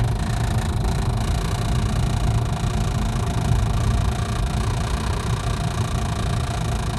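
2005 BMW 535i at highway speed: a steady low rumble with a constant hum on top, the noise that appears every time the car goes above 55 mph and goes away below it. Its cause is not known.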